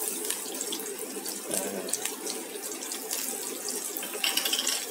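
Shallots and minced garlic frying in hot cooking oil in a wok: a steady sizzling hiss with scattered crackles.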